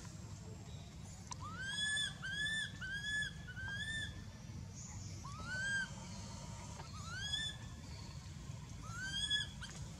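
Infant long-tailed macaque giving distress cries: a quick run of four short calls, each rising then falling in pitch, then single cries every second or two.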